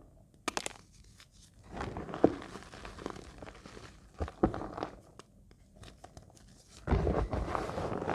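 Reformed gym chalk crunching and crumbling as hands crush lumps in the palms and drop the crumbs onto a heap of chalk powder. There are single soft crunches about half a second, two seconds and four and a half seconds in, then a longer stretch of dense crumbling near the end.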